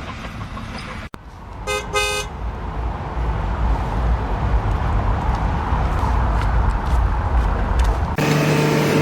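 A vehicle horn gives two short toots about two seconds in, followed by a steady low rumble. Near the end the sound changes abruptly to a different steady tone.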